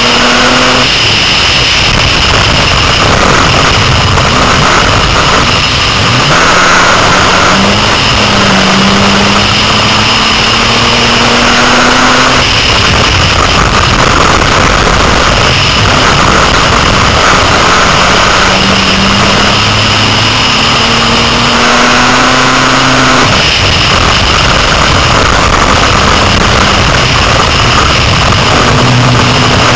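Six-cylinder dirt-track race car's engine heard from inside the car, running hard: its pitch climbs steadily down each straight, then drops off into the turns, about every 11 seconds, over a constant loud rush of noise.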